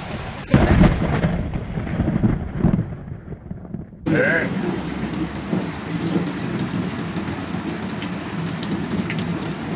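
A sudden loud thunderclap about half a second in, rumbling and fading away over the next three seconds. It gives way abruptly, at about four seconds, to steady heavy rain pouring onto floodwater.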